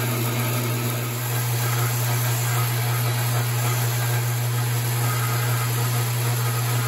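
Steady low hum of a metal lathe's electric motor running.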